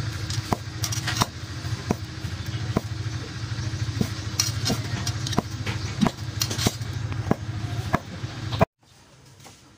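Cleaver chopping on a wooden chopping board, a sharp knock roughly every three-quarters of a second, over a steady low hum. The sound cuts off suddenly near the end.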